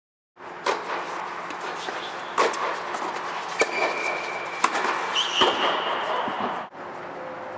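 Tennis balls struck by rackets: a handful of sharp hits about a second apart over a steady background hiss, with two brief high-pitched tones in between.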